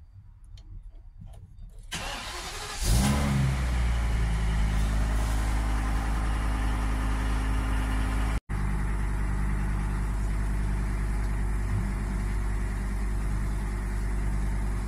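A car engine cranks briefly and catches just under three seconds in, revs up once, then settles into a steady idle.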